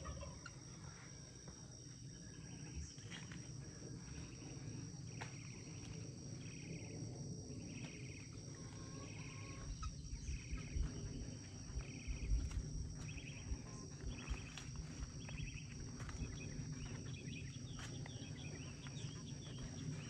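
Insects chirping in the garden: a steady high thin drone with short chirps repeating about once a second. Under it a low rustling haze and a few sharp clicks.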